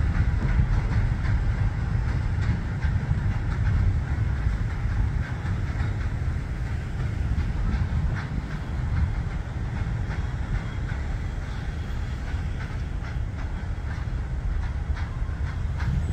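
Freight train's covered hopper cars rolling away over the rails: a steady low rumble with wheels clicking over the rail joints, easing slowly as the train moves off.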